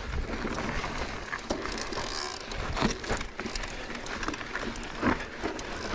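Mountain bike rolling downhill over a rough desert trail: steady tyre noise on dirt and loose gravel, with scattered sharp knocks and rattles as the bike goes over rocks.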